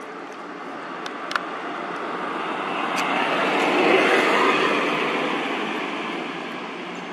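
A vehicle passing on the road: a rushing noise that swells to a peak about four seconds in, then fades. Two small clicks come a little over a second in.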